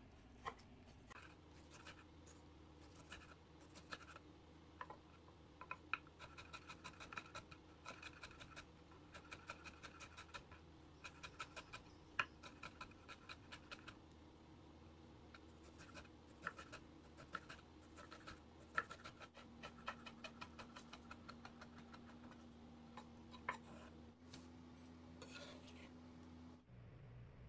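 Chef's knife chopping aged kimchi on a wooden cutting board: sharp knife taps on the board in quick runs of several a second, with short pauses between the runs.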